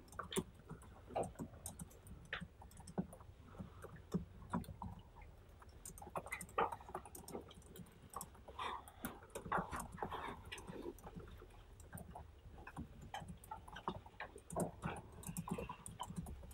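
Faint quiet-classroom sound: scattered light clicks and rustles over a low steady hum.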